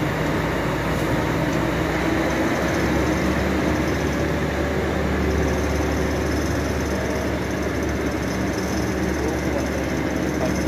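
A machine running steadily, with a low hum that grows stronger about two and a half seconds in.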